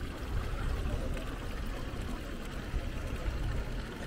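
City street ambience: a steady low rumble with a fainter hiss over it.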